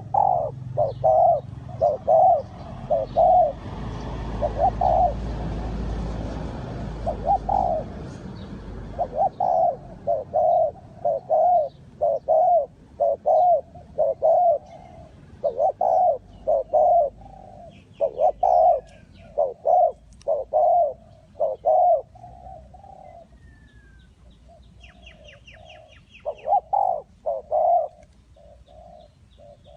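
Spotted dove cooing: a long series of short, low coo notes, roughly one a second, in repeated phrases with a couple of short pauses. Faint high chirps from another bird come in near the end.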